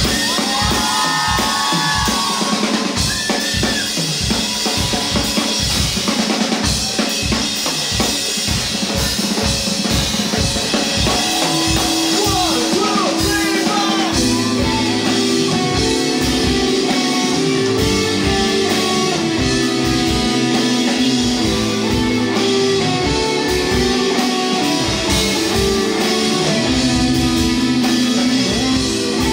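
Rock band playing live: a drum kit keeps a steady beat under electric bass and guitar, with no vocals. About halfway through, sustained chords come in and ring over the drums.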